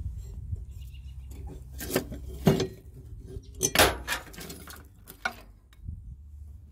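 Metal clanking and knocking as tools and mower parts are handled: several sharp strikes, some with a short ring. The loudest come about two and a half and four seconds in.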